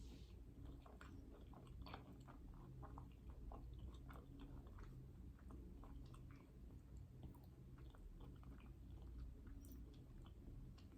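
Faint close-up chewing of someone eating a dessert: a steady run of small, irregular mouth clicks and smacks over a low steady hum.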